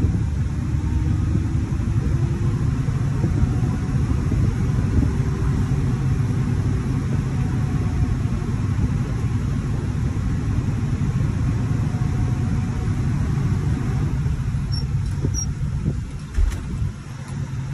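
Volvo semi-truck's diesel engine running as the truck drives, a steady low rumble heard from inside the cab. Near the end the sound dips briefly with a few clicks as the manual gear lever is shifted.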